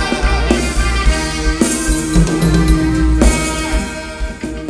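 Live band playing Thai ramwong dance music through stage PA speakers: a drum kit beating under steady held notes, an instrumental stretch with no singing. It dies away near the end.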